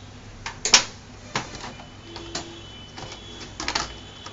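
Scattered clicks and knocks from the plastic casing and hinged screen of a Lenovo G550 laptop as it is handled. The loudest knock comes about three-quarters of a second in, and a quick cluster of clicks comes near the end as the display lid is gripped and moved.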